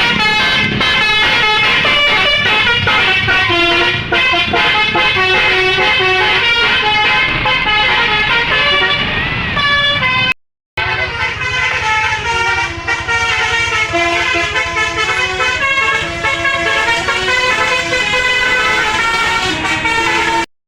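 Bus's basuri telolet horn, a multi-tone musical air horn, playing a tune as a quick run of stepped notes with several pitches sounding at once. It breaks off for a moment about halfway through, then carries on.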